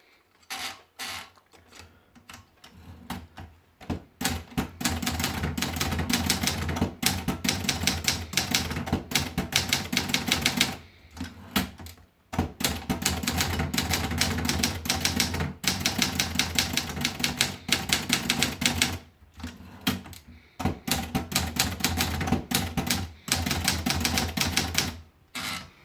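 Triumph Gabriele typewriter being typed on. A few separate keystrokes come first, then fast, continuous clacking in long runs, broken by short pauses twice.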